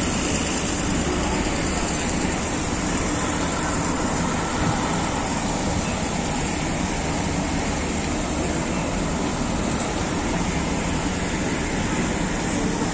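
Steady outdoor city background noise with a low traffic rumble and no distinct events.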